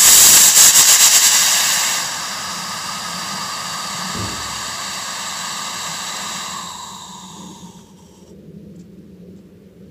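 Potassium nitrate sugar rocket motor (rocket candy) on a static test fire: a loud rushing hiss of exhaust, loudest and roughest for the first two seconds, then steadier, tapering off and cutting out about eight seconds in. The uploader reads the burn as erosive in the middle, with a slow burnout tail and a nozzle widened by high pressure.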